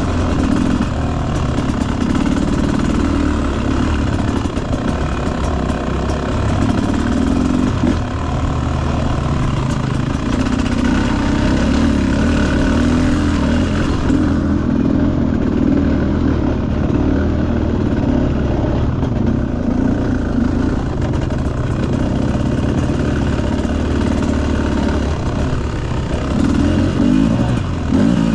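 Dirt bike engine running close-up while under way, its note shifting as the throttle opens and closes.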